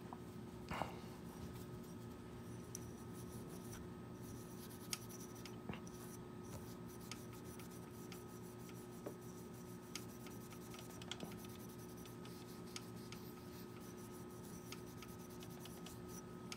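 Faint scratching and rubbing as a hand tool works over a metal saxophone mouthpiece, cleaning up around its newly fitted bite plate, with scattered small clicks.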